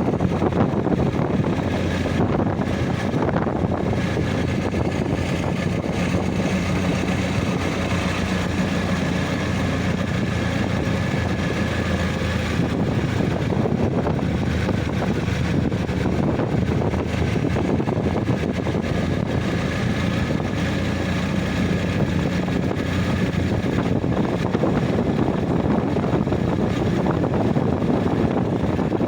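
A motor vehicle's engine running steadily under a loud, even rush of noise.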